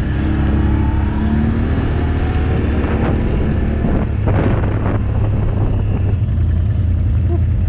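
Quad (ATV) engine running steadily while riding, its pitch rising a little in the first second or so, with a few sharp knocks about three seconds in and again around four to five seconds in.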